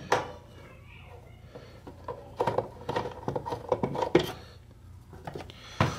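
Clicks and light knocks of a screwdriver and loose screws against the plastic cabinet of a cassette radio as its back screws are taken out. A quick run of clatter comes about two seconds in, with single clicks at the start and near the end.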